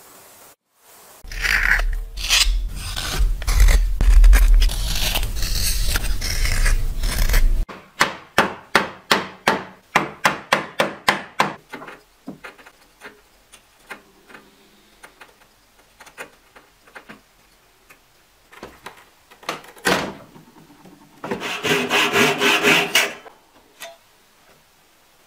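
Hand tools working wood across several short scenes. It opens with a few seconds of steady rubbing and rasping over a low rumble, then quick regular strokes about three a second. After that come light scattered taps and cuts as a chisel pares a small slot, and a brief burst of scraping near the end.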